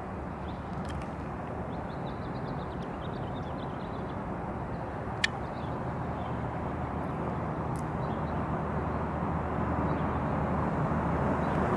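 Steady low rumble of outdoor background noise, growing gradually louder, with faint high chirps a couple of seconds in and one sharp click about five seconds in.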